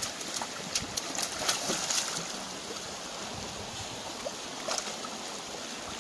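Shallow rocky stream flowing steadily, with several short splashes from a person wading and reaching into the water, most of them in the first two seconds and one or two more near the end.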